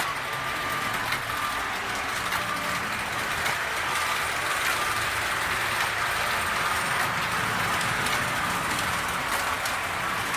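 Three-rail O-gauge toy trains running on their track: a steady motor whir and wheel rumble with light clicking over the rail joints.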